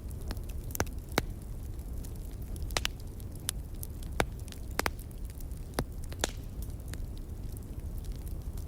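Wood fire crackling: irregular sharp pops from burning logs, a dozen or so, over a steady low rumble.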